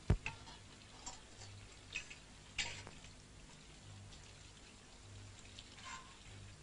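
Faint scattered clicks and ticks, with a soft thud just after the start, over a low hum that swells and fades about once a second.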